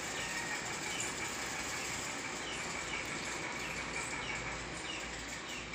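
Steady background hiss with faint, short falling chirps repeating irregularly about every half second.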